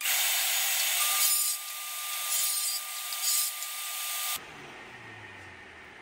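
Table saw ripping plywood boards: a loud, hissing cut with a steady whine, with no low end, that starts abruptly and cuts off suddenly a little past four seconds in.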